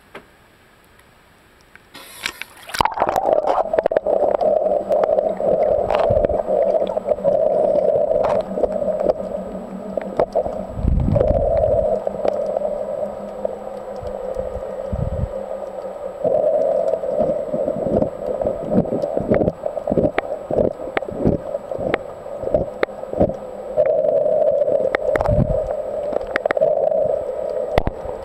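A splash about two seconds in as the camera goes under water, then muffled underwater gurgling noise that swells and drops, broken by scattered clicks and a few low knocks.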